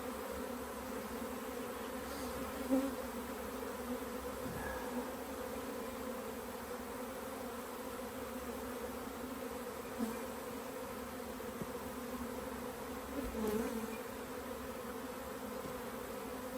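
Honeybee colony buzzing steadily from an open brood box, a dense even hum of many wings, with a few light knocks from handling the hive.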